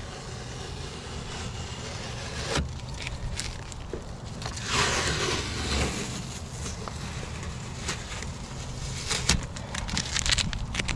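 Blue painter's tape being peeled off a car's headlight surround, with short tearing crackles, and a louder swell of noise about halfway through.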